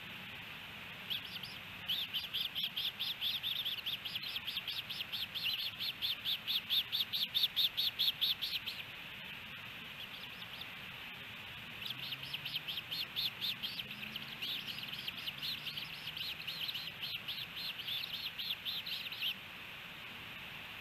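Ospreys chirping: two long runs of rapid, repeated high chirps, about five a second. The first run stops about nine seconds in, and the second starts about three seconds later.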